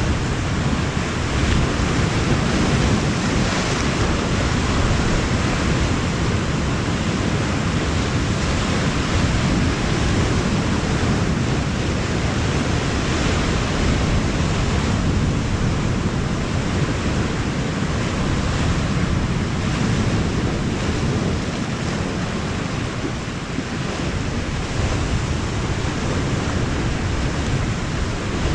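Steady wash of sea surf on a rocky shore mixed with wind buffeting the microphone, a continuous rushing noise with no distinct breaks.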